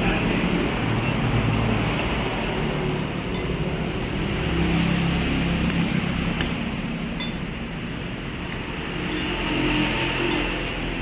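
Light clinks of a spoon against dishware now and then, over a steady background rumble and hum.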